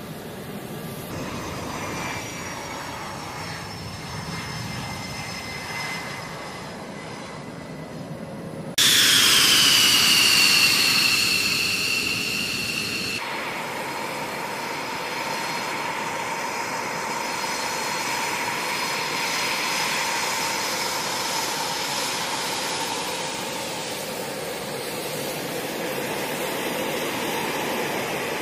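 Fighter jet engines at taxi power: a steady rushing hiss with a high whine. About nine seconds in, the sound jumps suddenly louder and closer, and the whine falls in pitch over the next few seconds before settling into a steady drone.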